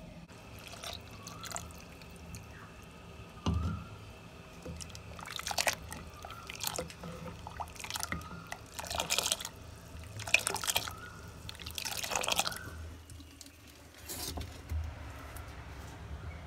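Wooden spoon stirring and scraping a wet, thick mixture in a clay pot, in irregular wet bursts every second or two, with one heavier knock about three and a half seconds in.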